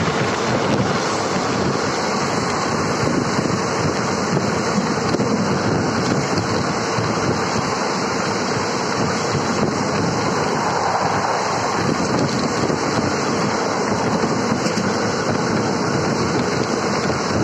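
Steady rush of wind and running noise from a passenger train travelling at high speed, heard at an open coach window with wind buffeting the microphone.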